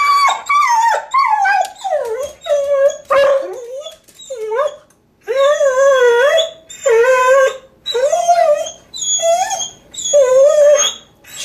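Pet dog whining and howling in a long run of high, wavering cries, a few of them about a second long. The dog is worked up at a raccoon outside that it cannot get out to.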